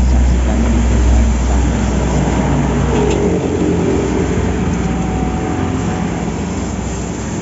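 A steady roar of passing road traffic mixed with the wok's gas burner and eggs frying in the wok. A heavy low rumble eases off about three seconds in.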